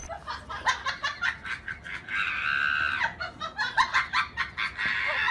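People laughing hard in quick bursts, with a long high-pitched shriek of laughter about two seconds in.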